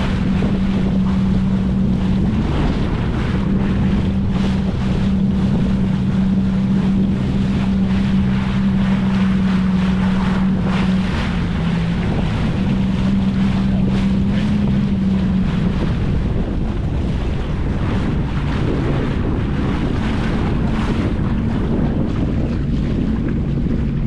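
Jet ski engine running at low speed, a steady hum that drops off and changes pitch a few times, under heavy wind rushing on the microphone.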